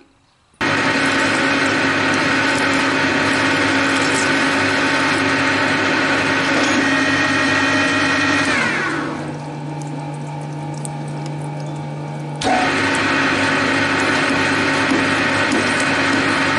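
Metal lathe running steadily as it turns a metal part under cutting fluid, its motor and drive giving a steady whine. Partway through the whine slides down in pitch and the sound grows quieter for about three seconds, then comes back suddenly at full level.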